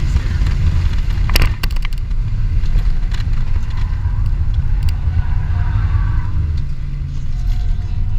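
Inside the cabin of a 2003 BMW 325i being driven at track pace: its 2.5-litre inline-six engine and the road noise make a loud, steady rumble. A short cluster of clicks or rattles comes about a second and a half in.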